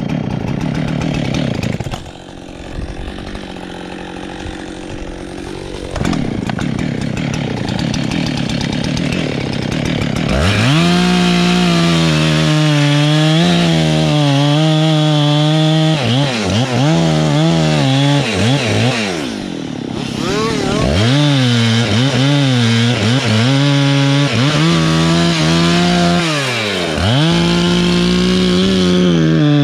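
Chainsaw cutting pine. It runs at lower speed for the first third, then revs to full throttle, and its pitch sags again and again as the chain loads up in the wood. It drops off briefly about two-thirds of the way through before revving back up.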